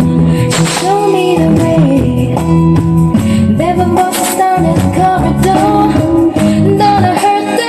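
A song with a woman singing over a heavy, steady bass line, played through a large outdoor pro audio speaker stack.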